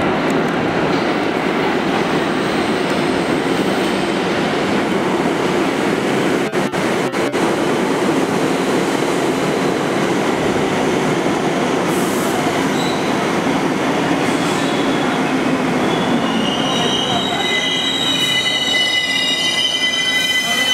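A NYC Subway 1 train of R62A cars pulls into the station and rolls past, with a steady heavy rumble from its wheels and running gear. Near the end a high squeal in several tones sets in as the train brakes to a stop.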